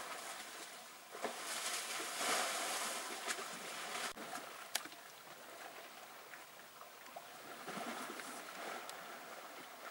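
African elephants wallowing in a muddy waterhole: wet mud and water sloshing and splashing in two swells, the louder one starting about a second in, with a few sharp clicks after it.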